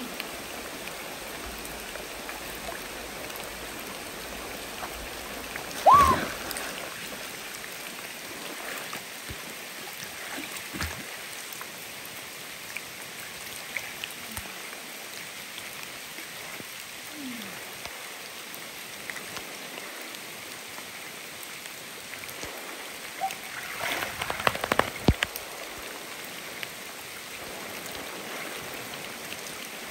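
Steady rush of a shallow river flowing over rocks, with a person splashing in the water: one loud splash about six seconds in and a run of splashes a few seconds before the end.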